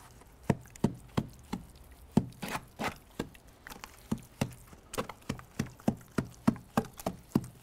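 Long wooden pole repeatedly pounding a stiff, wet lime putty and sharp sand plaster mix in a plastic tub: a steady run of dull thuds, about three a second. This is the mix being knocked up into a base coat for plastering.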